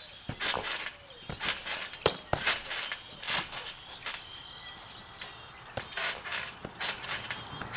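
Stunt scooter bouncing on a trampoline: an irregular series of sharp thumps and clatters as the deck and wheels land on the mat, with a lull in the middle.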